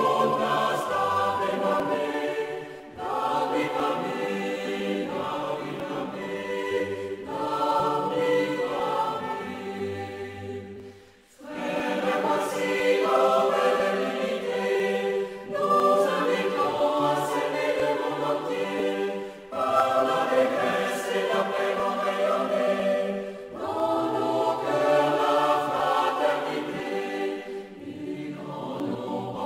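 A choir singing in several voice parts, in phrases a few seconds long with brief breaks between them, the longest break about eleven seconds in.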